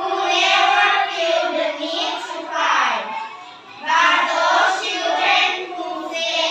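A group of children reciting a text aloud in unison, in chant-like phrases, with a short pause about three and a half seconds in.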